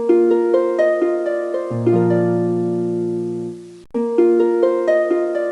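Background music: a plucked harp-like melody of quick notes over a held bass note, briefly cutting out about four seconds in before starting again.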